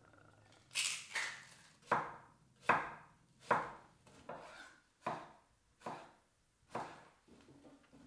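Handfuls of raw sliced onion and potato pieces dropped into a cast iron skillet: about nine separate soft clattering thuds, roughly one a second.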